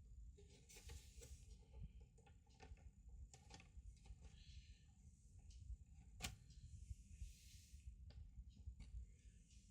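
Faint scattered clicks and taps of small parts being handled, with one sharper click about six seconds in.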